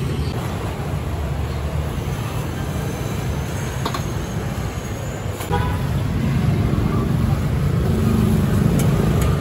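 Street traffic of passing motorbikes, a steady low rumble that grows louder about halfway through, with a short horn toot and a sharp click near the middle.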